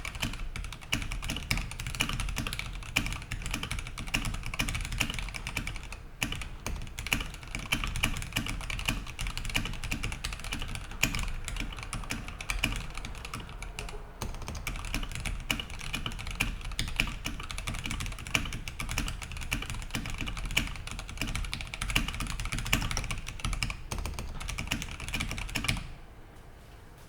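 Rapid, steady typing on a TOFU65 aluminium-case mechanical keyboard with lubed and filmed Gateron Red Ink V2 linear switches, a polycarbonate plate and PBT keycaps. The keystrokes stop about a second before the end.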